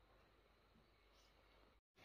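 Near silence: faint room tone, cut by a brief moment of complete silence near the end.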